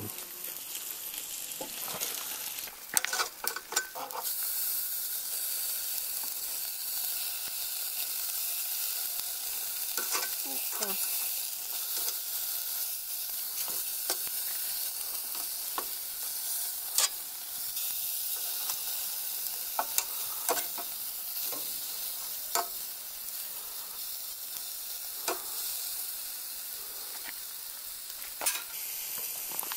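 Beef ribs sizzling steadily on a cast iron grill over hot charcoal briquettes in a camp oven, with scattered clicks and scrapes of a utensil on the grill as the ribs are turned over, a cluster of them a few seconds in.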